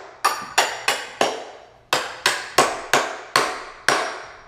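A hammer tapping about ten times, roughly three taps a second with a short pause near the middle, to knock the two halves of a wooden table together over their bolts. Each tap is sharp and rings briefly.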